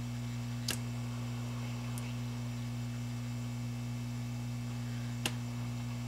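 Hot air rework station running with a steady low hum while it heats a flash BIOS chip on a hard drive circuit board to melt its solder and desolder it. Two sharp clicks from the metal tweezers at the chip come about a second in and near the end.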